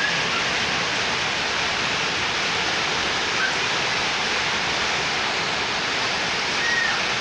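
Heavy rain falling, a steady, dense hiss with no breaks.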